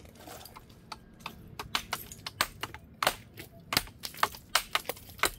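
Sharp, irregular taps of a hammer on stone, about three a second: a waller trimming and seating stones on the top course of a dry stone wall.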